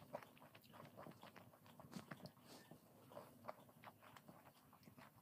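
Faint chewing of a fried beetroot pakora: soft, irregular crunches and mouth clicks.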